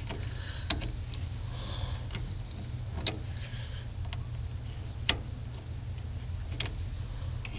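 A few light, sharp clicks, spaced a second or two apart, of the positive cable clamp and tools being fitted to a truck battery's terminal, over a steady low hum.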